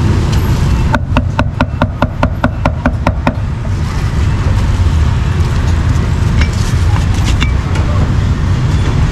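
Cleaver chopping meat on a chopping block in a fast, even run of sharp strokes, about six or seven a second for a little over two seconds. Steady street-traffic rumble runs underneath.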